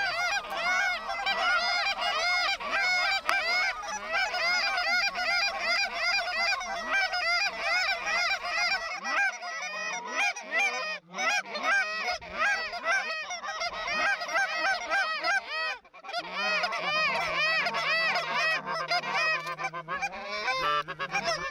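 Flock of Canada geese honking, a dense chorus of many overlapping calls that barely lets up, with a couple of brief lulls in the middle.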